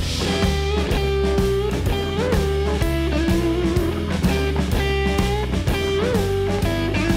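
Background music: an electric guitar playing a melody with a few bent notes over bass and a steady drum beat.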